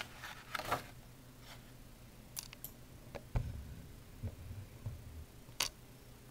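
Faint scattered clicks and knocks over a low steady hum, with a soft low thump about three and a half seconds in and a sharper click near the end.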